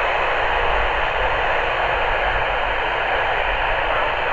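Steady radio static hiss from a weather radio receiver, with a low hum underneath.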